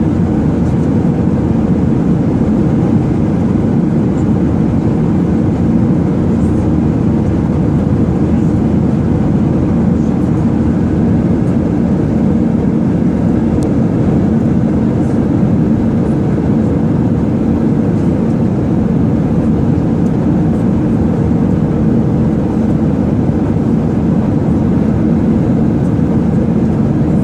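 Steady cabin noise of an airliner in flight: a loud, even rumble of engine and airflow with no change in level.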